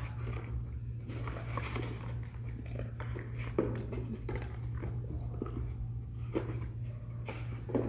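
A dog nosing and rummaging through a cardboard box of paper rolls and small cartons, with irregular cardboard rustles, scrapes and crunches as it digs out and chews hidden dry food.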